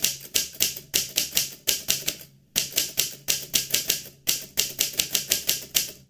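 Keyboard typing: rapid key clacks, about five or six a second, in three runs with short pauses about two seconds and four seconds in.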